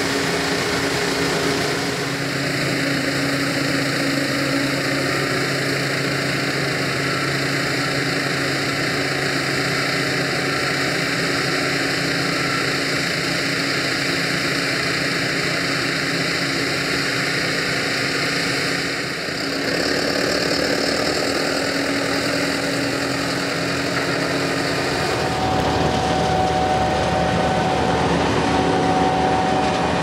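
John Deere S670i combine harvester running steadily while harvesting rice: engine and threshing machinery with several steady tones. The sound changes abruptly about two, nineteen and twenty-five seconds in.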